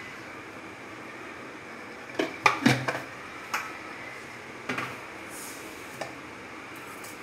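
Metal spoon clinking against a stainless steel mixing bowl while spices are added to soaked sago and potato: a quick run of sharp clinks about two seconds in, then a few single clinks.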